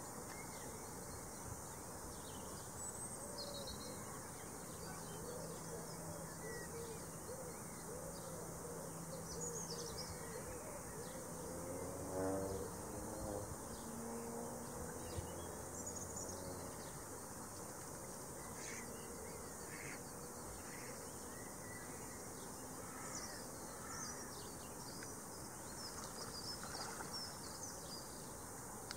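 Outdoor ambience: a steady low hiss with scattered bird calls, short chirps throughout and one louder call about twelve seconds in.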